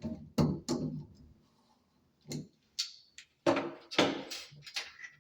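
Irregular clicks and knocks of small metal parts and tools being handled at a shower valve, a few single taps and then a quick cluster of knocks about three and a half seconds in.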